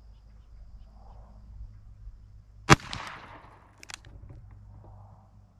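A single shot from a Ruger GP100 revolver loaded with .38 Special 158-grain lead round nose, a sharp crack about two and a half seconds in with a short echo trailing off. Two faint clicks follow about a second later.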